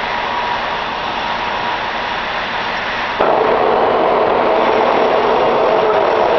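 Steady running noise of a metal lathe. About three seconds in it abruptly becomes louder, with a steady mid-pitched hum added.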